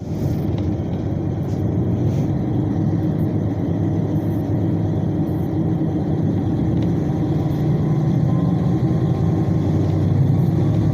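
Diesel railcar heard from inside the cabin: its engine runs with a steady low hum as the train moves slowly alongside a station platform.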